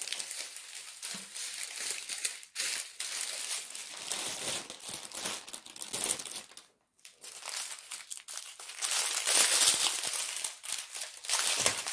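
Plastic crinkling and rustling as strips of small sealed plastic bags of diamond-painting drills are handled and pulled about. It stops briefly about seven seconds in and is loudest a couple of seconds later.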